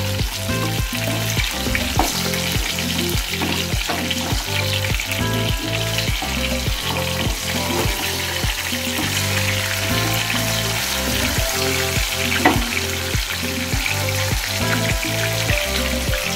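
Besan-battered Bombay duck pieces sizzling steadily as they deep-fry in hot oil, with a spatula turning them in the pan. Background music with a steady beat runs underneath.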